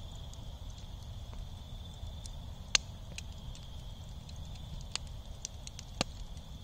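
Wood fire burned down to glowing embers, crackling with sparse sharp pops, the loudest just under three seconds in and another about six seconds in.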